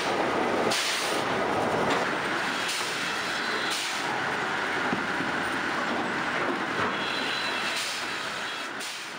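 Log debarker running as a log is fed through it, its five toothed arms peeling off the bark: a steady mechanical clatter and rumble with a few sharp bangs.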